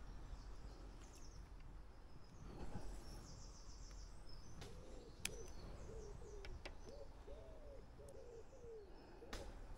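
A pigeon cooing, a run of soft low coos starting about four and a half seconds in, over faint chirping of small birds. Two sharp ticks stand out, about five seconds in and near the end.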